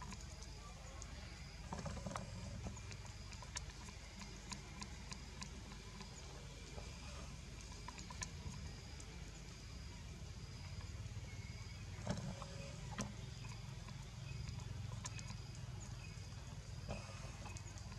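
Forest outdoor ambience: a steady low rumble with scattered sharp clicks and snaps, the sharpest about twelve seconds in, and a faint high note repeating about once or twice a second.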